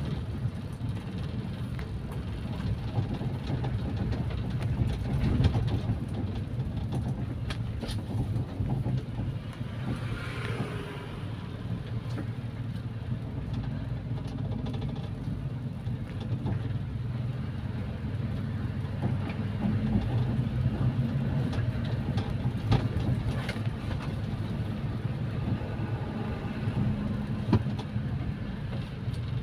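Carburetted car engine running at a steady cruise, a constant low drone with road noise and only small swells in level.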